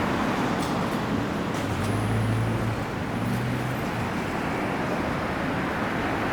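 City street traffic noise: a steady rush of passing vehicles, with a low engine hum from a nearby vehicle about two seconds in, lasting under two seconds.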